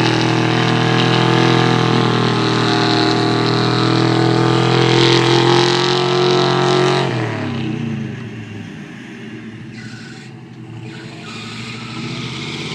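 Truck engine held at high revs as it strains to pull free of the mud, then the revs drop away about seven seconds in and it runs quieter.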